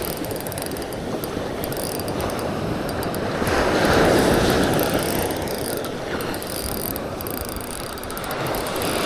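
Fishing reel clicking rapidly and steadily as a hooked tailor is fought in on the line.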